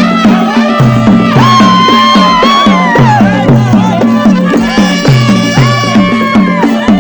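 Traditional Nepali baja band playing loudly: a wavering, bending reed-pipe melody over a steady drum beat of about three strokes a second.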